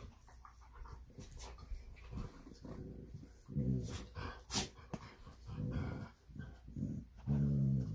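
Two dogs play-fighting, mouthing each other and giving low growls in several stretches, the longest near the end, with a few sharp clicks in between.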